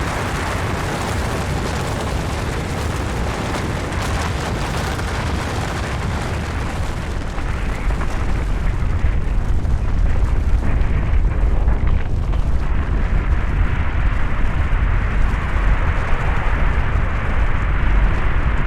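Avalanche sound effect: a continuous rushing rumble that grows louder and deeper from about seven seconds in.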